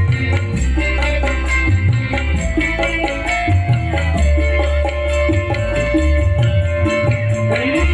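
Dangdut koplo band music: drums and a bass line under a melody, with one melody note held for about three seconds in the second half.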